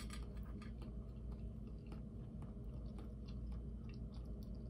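A person chewing a mouthful of cucumber and tomato salad, with many small wet mouth clicks scattered through, over a steady low hum.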